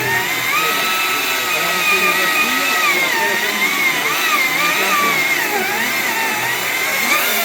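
Battery-powered Stihl chainsaw running with a steady electric motor whine whose pitch wavers up and down as the chain is loaded.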